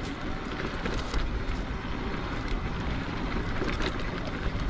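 Mountain bike rolling along a dirt trail: steady tyre rumble with scattered clicks and rattles from the bike, and wind on the microphone.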